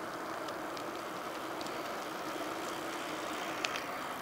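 Distant jet airliner's engines: a steady roar. A few faint ticks, and one sharp click a little before the end.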